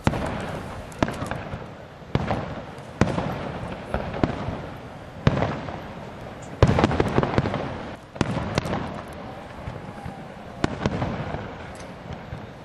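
Fireworks display: shells bursting in sharp bangs about once a second, each trailing off in a rumbling echo, with a denser run of bangs and crackle about halfway through.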